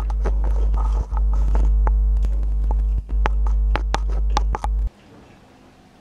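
Loud steady electrical hum with a buzz of many overtones, under a run of sharp clicks and taps from wires being fed into an aluminium extrusion frame. Everything cuts off abruptly about five seconds in, leaving faint room noise.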